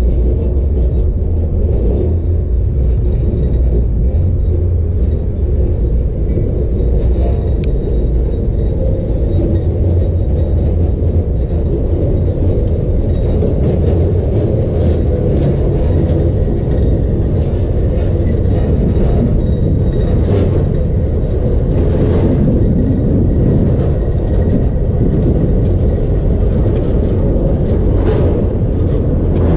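Vintage electric tram with a trailer car rolling slowly over depot tracks and points, under a steady low rumble. A few sharp clicks and faint squeals come in the second half.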